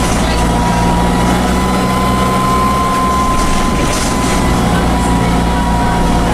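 Dennis Dart bus's Cummins diesel engine running under way, with a steady high whine from the turbocharger over the low engine hum. The uploader calls the engine knackered.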